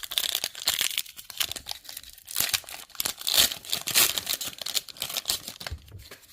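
Foil Pokémon booster pack wrapper crinkling and tearing as it is opened by hand, a dense run of irregular crackles.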